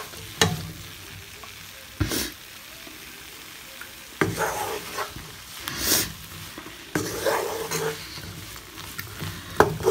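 A wooden spoon stirring and scraping chicken and vegetables around a non-stick frying pan in irregular strokes, over a faint steady sizzle of the food frying.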